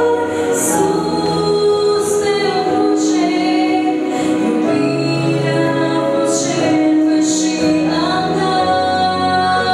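A woman singing a slow Christian song into a microphone, amplified, over sustained instrumental accompaniment.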